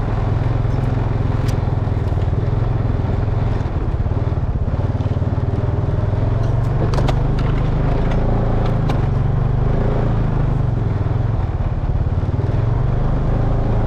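Honda Rancher ATV engine running steadily while riding, with a few brief crackles and clicks over the top.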